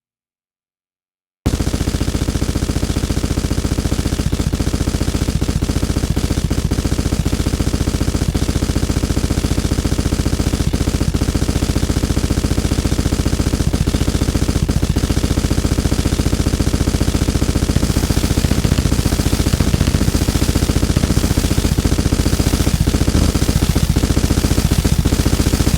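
Harsh noise music: silence, then about a second and a half in a loud, dense wall of distorted noise cuts in abruptly. It stutters in a very fast, machine-gun-like pulse that keeps going.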